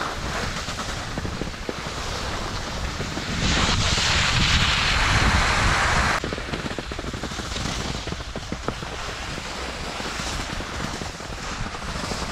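Wind buffeting the microphone mixed with a snowboard sliding over snow: a steady rushing noise that swells for a couple of seconds about a third of the way in, then drops suddenly around the middle.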